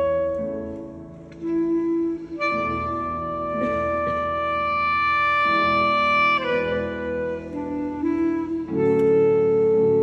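Clarinet playing a slow classical melody, with a long high note held in the middle of the phrase and a new, louder note starting near the end.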